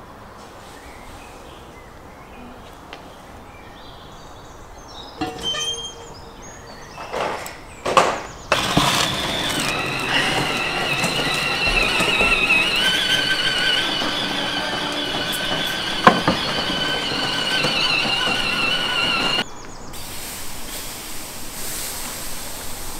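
A few knocks, then a large metal baking tray of salt-crusted salmon dragged out over the floor of a brick oven, scraping with a sustained, wavering metallic squeal that stops abruptly.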